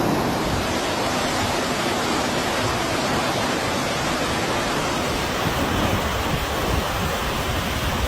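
Steady, loud rush of turbulent water, as from a flooded torrent.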